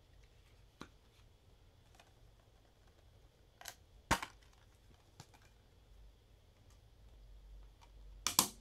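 Metal SteelBook case handled and snapped open with a sharp click a little after four seconds in. Near the end a quick cluster of clicks as a disc is pressed off its plastic hub, with light handling clicks in between.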